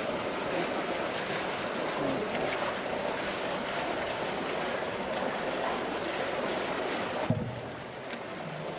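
Pool water sloshing and splashing as a polar bear swims with a large floating buoy. A single dull thump comes about seven seconds in.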